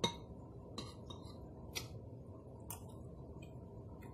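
A metal spoon clicks against a ceramic plate while scooping food, the loudest sound, followed by three fainter clicks about a second apart while a mouthful is eaten.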